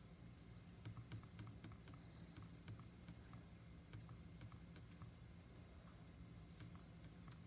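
Near silence with faint, irregular light ticks and scratches from a paintbrush stroking paint onto a canvas and dabbing into paint on a paper-plate palette, over a low steady hum.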